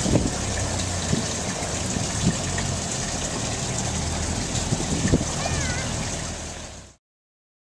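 Boat motor running with water rushing along the hull and wind buffeting the microphone; the sound cuts off to silence near the end.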